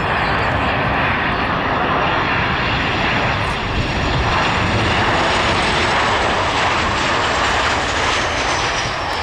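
Twin-engine jet airliner passing low on its landing approach: a loud, steady jet engine roar, with a high whine that falls in pitch near the end as it flares over the runway.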